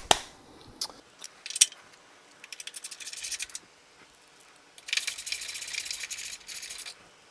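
Metal hand tools clinking as they are set down and picked up, a few separate clicks, then a short run of fast ticks and, from about five seconds in, a longer stretch of rapid rasping ticks as a hand tool is worked at the winch's hawse fairlead mount on the steel bumper.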